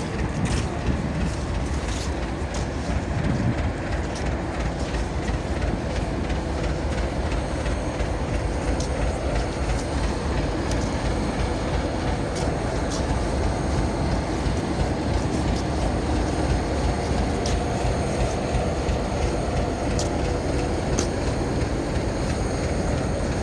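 Diesel-hauled passenger train on the move: a steady rumble with scattered clicks of wheels over rail joints.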